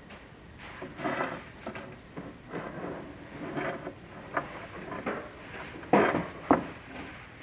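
Chimney inspection camera and its cable scraping and knocking against the flue as it is lowered, in irregular scuffs with two sharp knocks about six seconds in.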